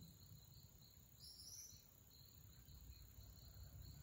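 Near silence: faint outdoor ambience with insects chirping in an even, pulsing rhythm, and a brief higher chirp a little over a second in.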